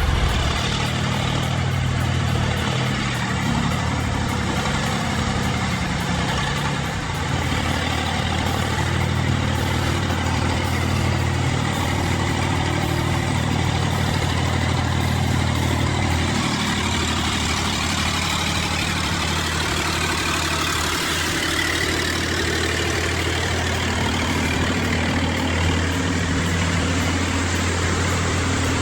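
Engine of heavy machinery running steadily, with a steady low hum under a broad mechanical noise.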